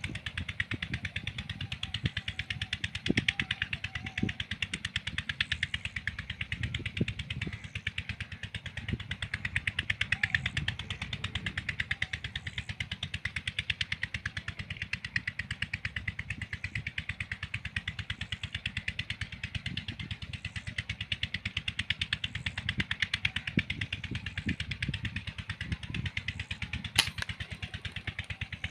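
An engine running steadily with a fast, even chugging, and one sharp crack near the end.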